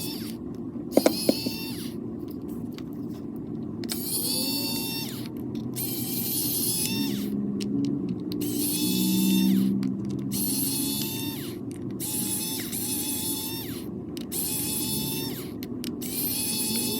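Small electric screwdriver backing out the tiny screws of a smartphone's mid-frame, repeatedly whirring in short runs of a second or two, each spinning up with a brief rising whine, with a few sharp clicks about a second in.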